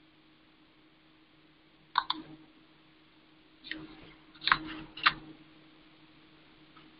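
About five short, sharp clicks from working a computer's mouse and keyboard, one near 2 s in and a quick cluster a couple of seconds later, over a faint steady hum.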